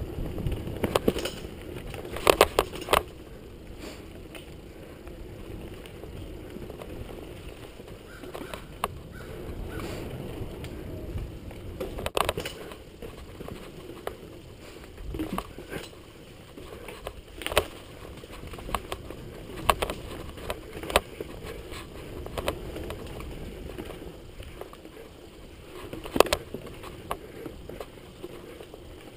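Mountain bike rolling fast over a dirt singletrack: a steady rumble of tyres on dirt and wind, broken by irregular sharp rattles and knocks from the bike as it hits roots and bumps.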